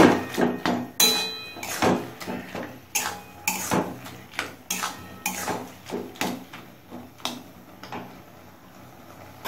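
Flat metal spatula scraping and knocking against the inside of a metal kadai while chopped pineapple and cooked tomatoes are stirred together: irregular strokes about once or twice a second, dying away near the end.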